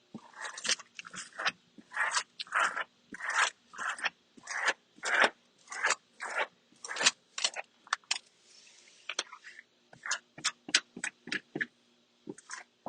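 Squeegee strokes scraping across a vinyl wall decal to press it onto the wall: a string of short swipes, one or two a second, quickening after a longer, softer rustle about eight seconds in.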